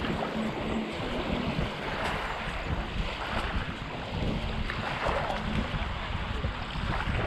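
Wind buffeting the microphone with a steady low rumble, over small waves washing up on a sandy shore, the wash swelling every couple of seconds.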